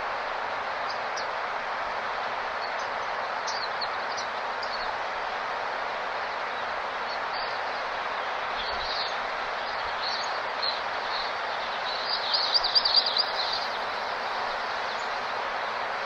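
Small birds chirping over a steady rushing hiss, with a quick burst of rapid twittering calls about twelve seconds in, the loudest sound.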